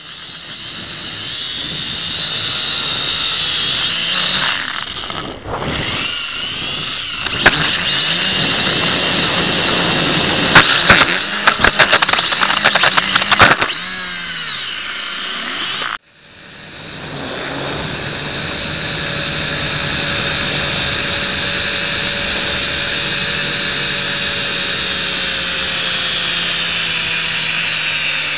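Syma X5C quadcopter's small motors and propellers whining steadily, as heard by its own onboard camera, building up at the start. A run of sharp clacks around the middle as the drone crashes and tumbles; then the sound cuts off abruptly and the motor whine builds up again and holds steady.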